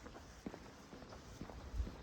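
Footsteps of someone walking at a steady pace, about two steps a second, over faint background noise.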